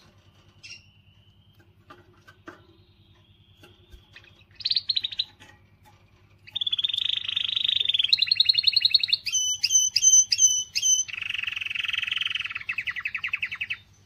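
Domestic canary singing: a few soft call notes, a short trill, then a long song of rapid trills that switch pitch, including a slower run of separate rising notes, which stops just before the end.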